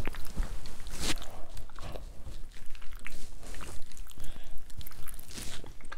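A hand squishing raw chicken pieces through a gooey, watery egg-and-spice marinade in a glass bowl, in irregular short squishes.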